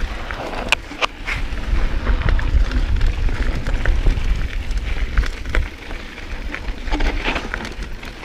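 Mountain bike riding fast down a dry dirt trail: wind rumbling on the action camera's microphone over the noise of tyres rolling on dirt, with sharp clicks and rattles from the bike over bumps.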